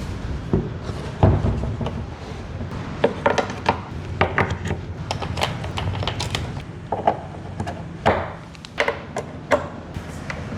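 Irregular knocks, thumps and clicks of equipment being handled while loudspeakers are unboxed and set up. There are about a dozen separate hits, the loudest about a second in and again around eight seconds in.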